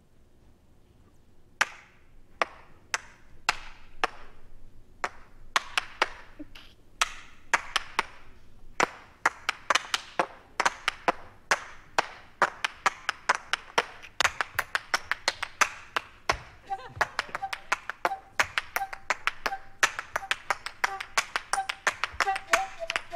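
Sharp percussive taps or claps, a few spaced well apart at first, then coming quicker and denser until they run close together. In the later part a faint held tone sounds beneath them.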